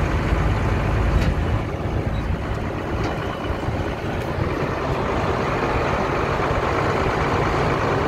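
Silage truck's engine running steadily as the truck reverses slowly, heard from the cab, with a single click about a second in.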